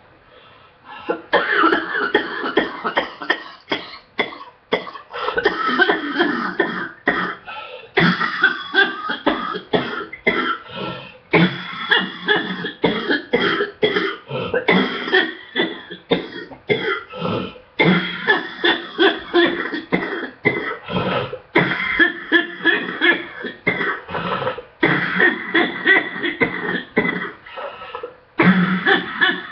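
Person coughing from an illness, a morning coughing fit: long runs of rapid coughs broken by short pauses every few seconds.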